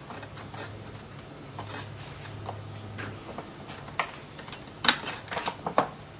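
Oyster shells clicking and knocking against a shucking knife and a wooden cutting board as oysters are opened. Faint scrapes and ticks at first, then a run of sharp clicks from about four seconds in, the loudest near five seconds.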